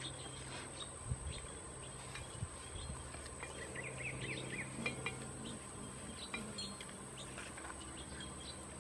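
Small birds chirping faintly in short calls, thickest about halfway through, over a steady faint high whine, with a few light taps and clicks.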